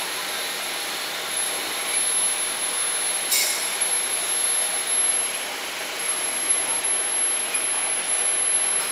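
Small benchtop metal lathe running under a cut, the tool turning down a spinning metal workpiece and throwing off curling chips, with a steady high-pitched whine over the machining noise and a brief hiss about three seconds in.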